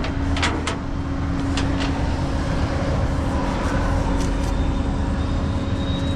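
A tow truck's engine idling with a steady low rumble and hum. A few sharp clicks come in the first two seconds.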